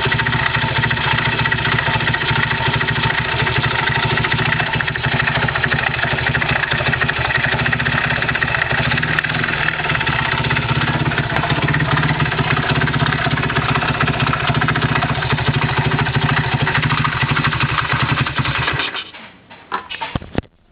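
Honda Monkey's small single-cylinder four-stroke engine idling steadily, run so the owner can find an unusual noise in it. It cuts off about nineteen seconds in, followed by a few clicks.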